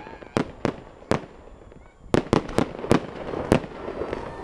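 Fireworks going off: sharp bangs, three in the first second, a short lull, then a quicker run of bangs from about two seconds in.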